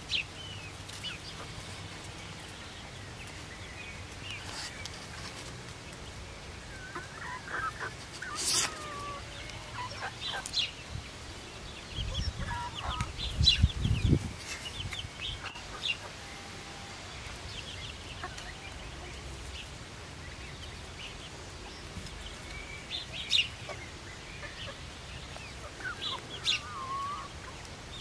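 Young Silkie chickens clucking and peeping now and then, short separate calls, some with a gliding pitch. A brief low rumble about halfway through.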